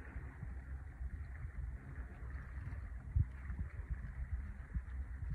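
Water lapping against a small boat's hull: a low, uneven rumble with soft irregular knocks, one louder knock about three seconds in.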